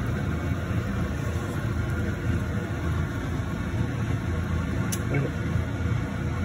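Steady low machine hum, with a single sharp click about five seconds in.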